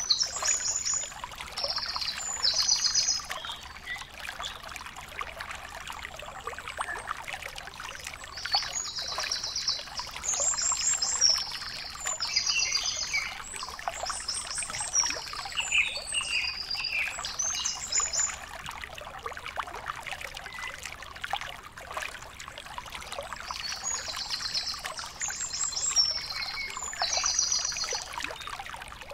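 Outdoor ambience: a steady trickling noise, like running water, with clusters of short, high, rapid trilled chirps coming every second or so, in the manner of small birds.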